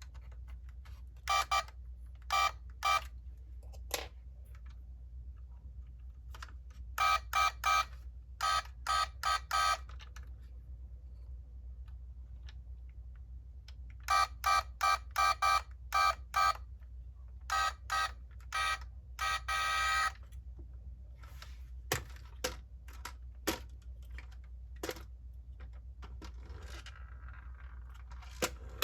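Clusters of short, evenly pitched electronic beeps, three to six in quick succession with pauses between the clusters, followed near the end by a few sharp clicks and taps, over a low steady hum.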